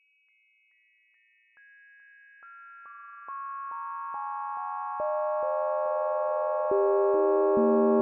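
Synthesised audio model of the 250-pood Lenten bell cast in 1838: its partials sound as steady pure tones added one at a time, about two or three a second, from the highest down to the lowest. The sustained bell chord grows lower, fuller and louder with each added tone, starting very faint.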